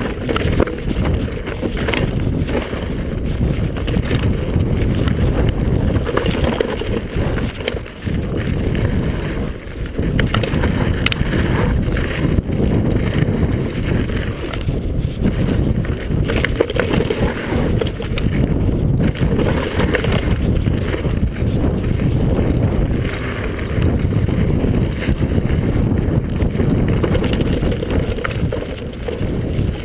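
Enduro mountain bike descending a forest dirt trail at speed: heavy wind buffeting on the action camera's microphone over a steady rumble of tyres on dirt, with frequent sharp knocks and rattles from the bike over bumps and roots.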